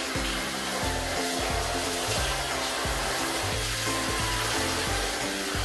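Water spraying steadily from a handheld shower head onto a dog's coat, a constant hiss, with background music underneath.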